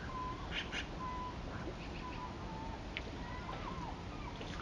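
Birds calling in short whistled notes, several of them sliding downward, over a steady rush of river water.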